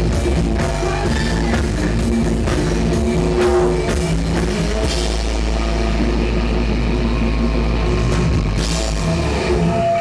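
Live rock band playing: electric guitars through amplifiers, bass and drum kit. The low end drops out near the end.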